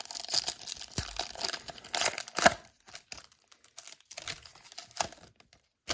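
Crinkling and tearing of a trading-card pack's foil wrapper as it is opened, with the loudest crackles about two seconds in, then fainter rustling and ticks of handling.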